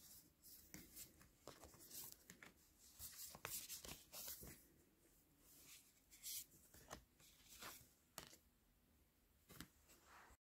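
Near silence, with faint scattered rustles and soft clicks of large round Wild Unknown Archetypes oracle cards being handled and fanned in the hands.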